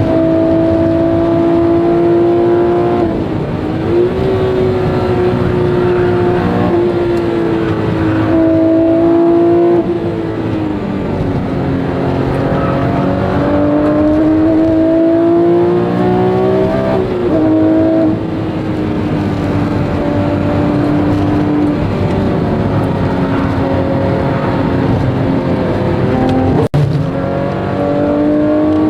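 Porsche 997 GT3 RS's naturally aspirated 3.6-litre flat-six heard from inside the cabin while being driven hard on a race track. The engine note climbs in pitch under throttle and drops sharply at gear changes and lifts for corners, several times over. The sound cuts out for an instant near the end.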